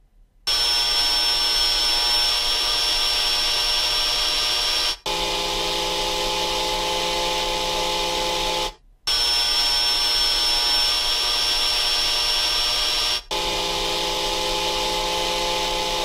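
Two vacuum cleaners running, played back in turn: brand A, then brand B, then A and B again, switching about every 4 s with short breaks. Brand A has a steady high-pitched whine over its airflow noise, the stronger high-end content that gives it the higher sharpness (2.32 vs 1.82 acum). Brand B's noise is held in lower steady hum tones.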